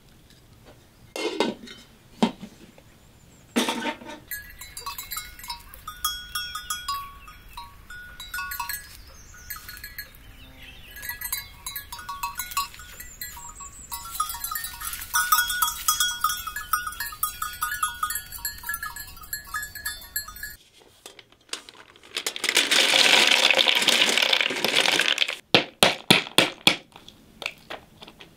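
Sheep bleating with the clink of a livestock bell. Near the end comes a fast run of sharp knocks.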